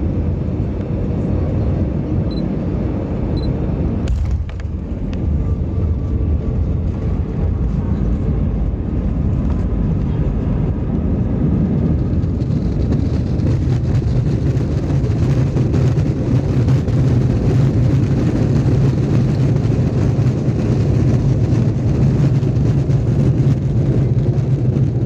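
Airbus A320 cabin noise on approach and landing: a steady rush of engine and airflow noise, which grows louder with a deeper hum from about halfway through.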